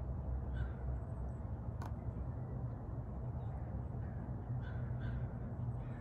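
Outdoor lakeside ambience: a steady low rumble with a few faint bird calls, once near the start and a few times about five seconds in, and a single sharp click about two seconds in.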